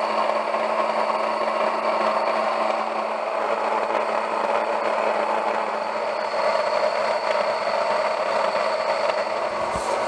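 Mockmill 200 electric stone grain mill running steadily, grinding wheat berries into flour: an even grinding whir over a constant hum.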